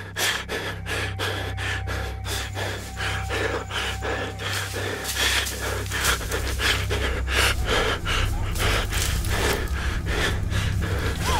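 A person panting and gasping hard in quick, rhythmic breaths over a steady low hum.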